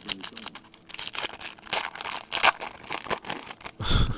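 A foil trading-card pack being torn open, its wrapper crinkling and rustling as the cards are slid out. A dull thump comes near the end.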